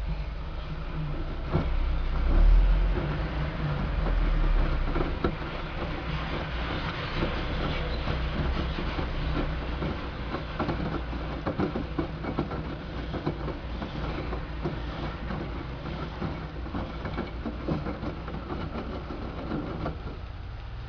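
LG 6Motion WD1485TD front-loading washing machine tumbling a load of towels: the drum turns with irregular soft thuds and knocks, and a louder low rumble comes a couple of seconds in.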